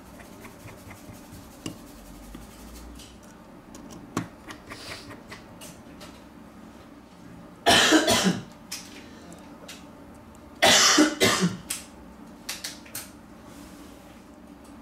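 A person coughs twice, two short bursts about three seconds apart, over faint clicks and taps of a small screwdriver working on the parts of an opened smartphone.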